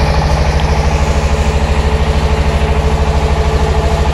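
Hino Dutro truck's diesel engine idling steadily, with an even, rapid pulse.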